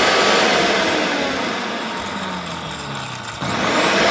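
Electric countertop blender running at speed, grinding dried Japanese chili pod shells and uda seeds into spice powder. Its motor pitch and level sag gradually, then pick back up about three and a half seconds in.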